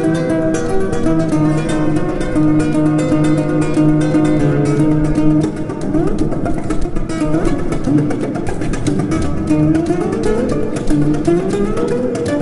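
Background music: acoustic guitar played in quick plucked and strummed notes.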